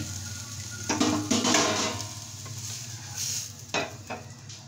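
Wooden spatula scraping under a potato pancake in a non-stick frying pan and lifting it out, with a few light knocks of utensils against pan and plate.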